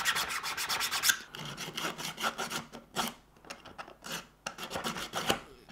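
A metal file rubbed quickly back and forth across the edge of a 3D-printed plastic part to ease a tight fit, about nine strokes a second; after about a second it gives way to a few slower, separate scraping strokes.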